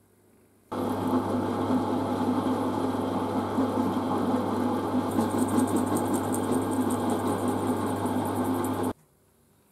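A drill press runs and cuts into the vise body, an end mill milling out the broken-off screws and then a twist drill boring the core hole for a new thread. The machine starts abruptly about a second in, runs steadily with a fine high chatter from about halfway, and stops suddenly near the end.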